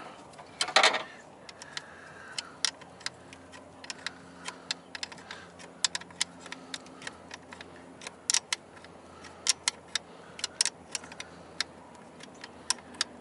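Irregular sharp clicks and clinks of hand tools and small parts being handled, a few a second, with a louder clatter about a second in.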